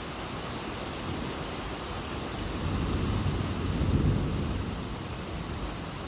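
Heavy rain falling steadily, with a low rumble of thunder that swells up about halfway through and fades away.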